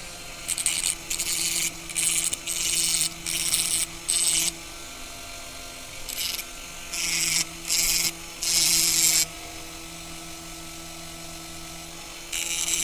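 Hand sanding of a hair dryer's glue-reinforced fan impeller blades, smoothing off excess glue: a series of short rasping strokes, with a pause of about three seconds before a last stroke near the end.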